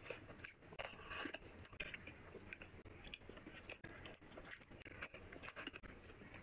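Close-up eating sounds of a person eating rice and curry by hand: fingers mixing rice on the plate and chewing, with many small irregular clicks and smacks.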